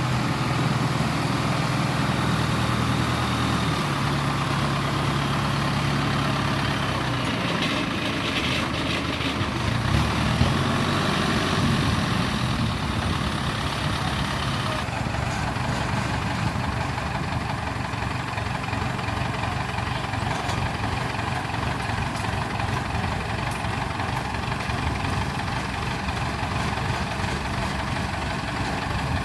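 Heavy diesel engine running steadily at a moderate speed, its pitch shifting a few times in the first ten seconds, over a constant mechanical clatter.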